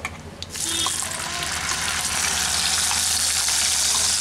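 Wet water spinach paste dropped into hot mustard oil, which starts sizzling suddenly about half a second in and keeps up a loud, steady hiss as the paste is spread with a spatula.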